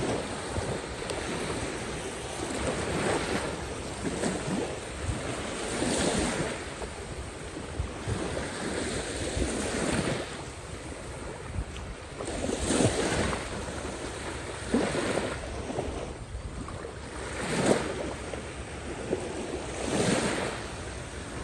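Small waves of the Caspian Sea breaking and washing onto the shore, a wash every couple of seconds, with some wind on the microphone.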